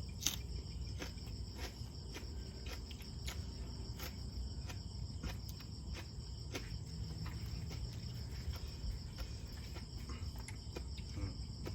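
Steady high-pitched insect chirring, with scattered small clicks and smacks of someone chewing and eating.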